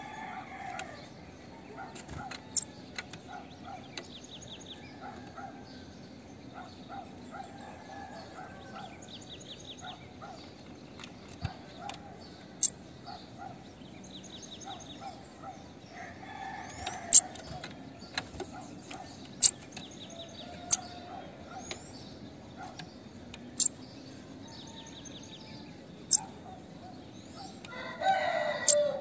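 Female bananaquit calling with short, sharp, very high-pitched notes every couple of seconds. Chickens cluck in the background, and a rooster crows near the end.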